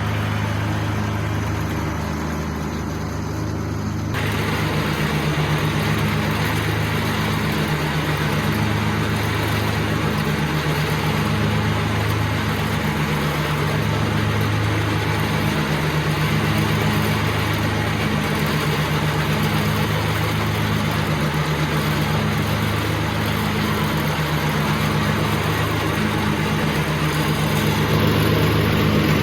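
Mahindra eMax 20 HST compact tractor's three-cylinder diesel engine running steadily at mowing RPM with the PTO-driven mower deck engaged. A louder rushing noise joins it about four seconds in.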